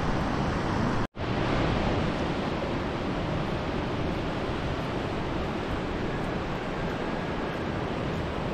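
River rushing over rocks in a steady rush of water, with some wind on the microphone; the sound drops out for an instant about a second in.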